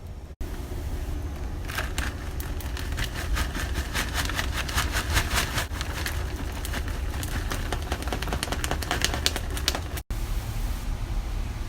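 Kitchen food-preparation sounds: a dense, irregular run of sharp clicks and taps over a steady low hum, breaking off abruptly twice at edit cuts.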